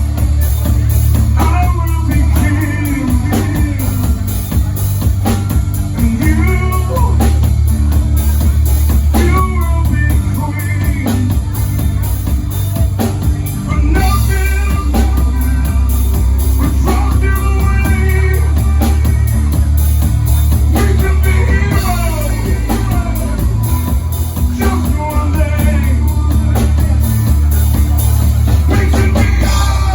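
Live rock band playing a song, loud: a voice singing over electric guitar, bass and drum kit, with a heavy low end.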